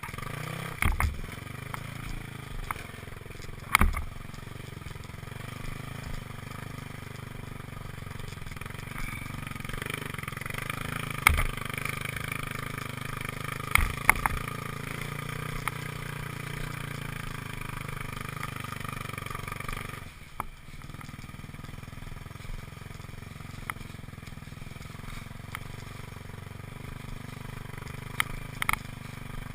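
Motorcycle engine running at a steady pace, with several sharp knocks and clatters over it. The sound breaks off briefly about two-thirds of the way through, then carries on.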